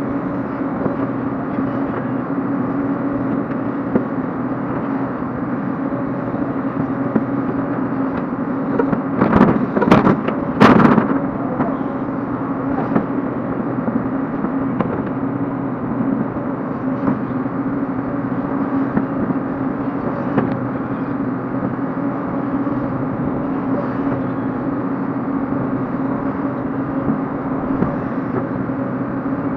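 Hyundai hydraulic excavator's diesel engine running steadily as the bucket digs into soil. A cluster of loud knocks and clanks about nine to eleven seconds in.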